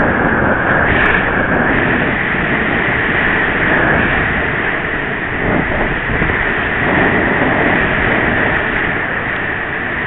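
Whitewater rapids rushing loudly and steadily, heard close up from a camera riding just above the water on a creek kayak, with water splashing over it.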